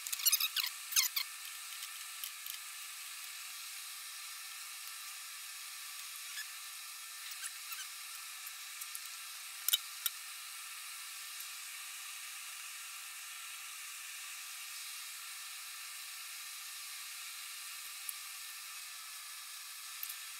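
Light metallic clicks and taps of a wrench and metal car parts being handled: a quick cluster of clicks in the first second, a few small ticks, and a sharper knock about ten seconds in, over a steady faint hiss.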